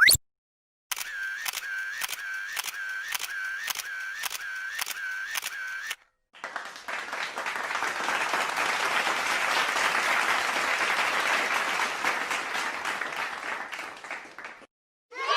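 Camera shutter clicking repeatedly, about twice a second, for some five seconds. After a short gap comes a round of applause that swells and then fades over about eight seconds.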